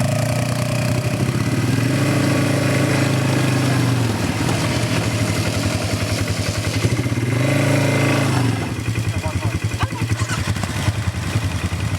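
ATV engine running while riding over a rough trail. It speeds up about a second in and holds before easing off around four seconds, then speeds up again briefly around seven to eight seconds.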